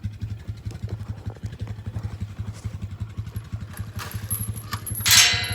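Four-wheeler engine idling with a steady, fast low pulse. Near the end, a loud, noisy clatter breaks in over it.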